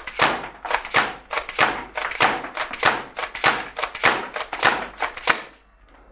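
Spring-powered Mossberg M590 airsoft pump shotgun slam-fired with the trigger held: rapid pump strokes clacking, each one firing a BB, about eight shots in some five seconds, with the BBs smacking into a cardboard box target. The run stops suddenly about five seconds in, once the feed channel is empty.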